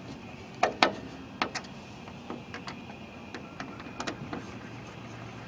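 Sharp, irregularly spaced clicks, a few a second, from a hand tool tightening the screws that hold a handle to the top frame of a flip-up UTV windshield.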